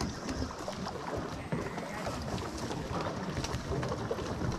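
Outdoor ambience at a fishing pond: faint chatter of many distant anglers, small water sounds and light wind on the microphone, with scattered faint clicks.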